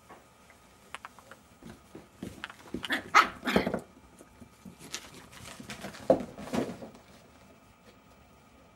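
Jack Russell Terrier puppies barking and yapping as they play-fight, in two loud clusters: one about three seconds in and another just past six seconds.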